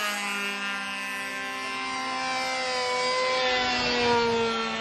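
Engines of radio-controlled model airplanes whining on low passes, their pitch dropping as each flies by; a second pass swells and falls about three to four seconds in.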